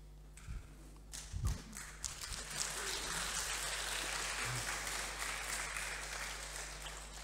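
Audience applauding: clapping starts about a second in, holds steady, and tapers off near the end, with a few soft thumps at the start.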